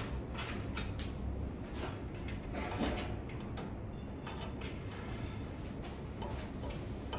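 Scattered light clicks and knocks of polywood chair parts and screws being handled during assembly, over a steady low hum.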